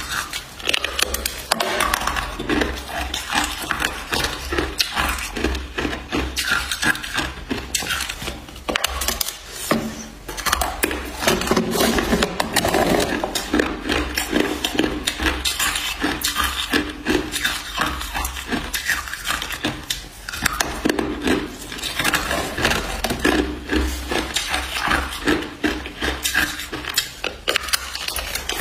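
Close crunching of hard clear ice being bitten off a thin slab and chewed: a dense run of sharp cracks and crackles, with a brief lull about ten seconds in.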